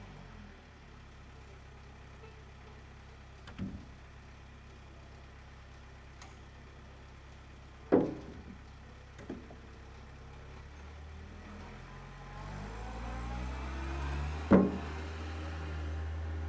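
Wheel loader's diesel engine running with a steady low hum that grows louder toward the end. Over it come a few hollow thuds of logs tossed into its steel bucket; the loudest land about halfway through and near the end.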